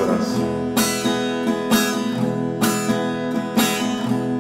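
Acoustic guitar strummed on an E major chord in a steady rhythm, with a heavier stroke about once a second and lighter strokes between.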